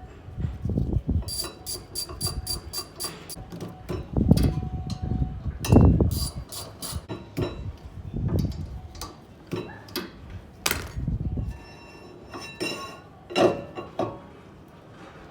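Hand tools working on the car's rear hub and brake parts: a series of metal clanks, knocks and thumps, with a quick run of ringing metallic clicks early on.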